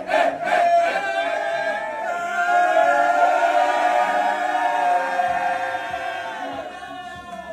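A group of men chanting in rhythm for about a second, then singing together on long held notes that fade out near the end.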